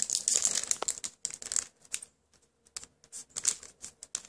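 Foil Pokémon booster pack wrapper crinkling and cards being handled: quick runs of rustles and clicks, with a short pause about two seconds in.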